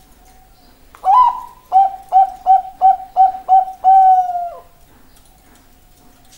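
Zebra dove (Bangkok-type perkutut) singing its cooing song. About a second in comes a higher opening coo, then six short, quick coos at an even pace, ending in a longer held coo that falls off at the end.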